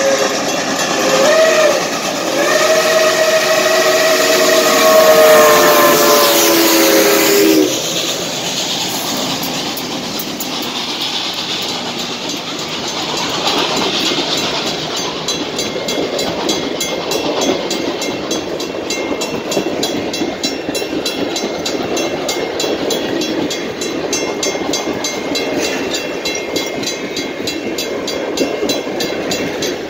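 Reading & Northern 425, a 1928 Baldwin Pacific-type steam locomotive, sounding its whistle: several notes together in one long blast that wavers briefly near the start, sags slightly in pitch as the engine passes, and cuts off about seven and a half seconds in. Then the steady rolling noise and rapid, even wheel clatter of its passenger coaches going by on the rails.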